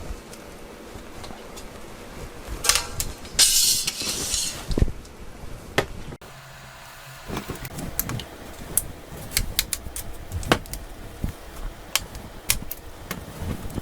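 Light clicks and taps of small repair tools on the plastic and metal parts of a smartphone being taken apart, with a louder scraping hiss about three and a half seconds in and quicker clicking in the second half.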